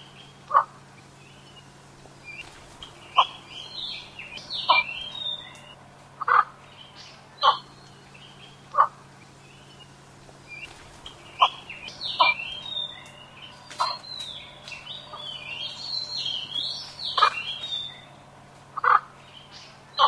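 Javan pond heron calling: short single calls repeated at irregular intervals of one to three seconds. Higher, busier twittering runs behind them in two spells, from about two to five seconds in and again from about eleven to eighteen seconds in.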